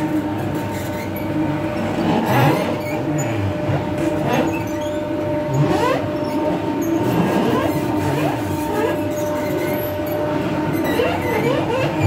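Motorised wood-pressed oil mill (chekku) running steadily, its rotating pestle grinding niger seed in the mortar, with a constant mechanical hum. Short rising squeaks and creaks come again and again from the pestle working against the mortar.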